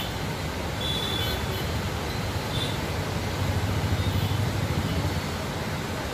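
Floodwater rushing through the open gates of a river barrage: a steady low rumble of churning water that swells a little about halfway through.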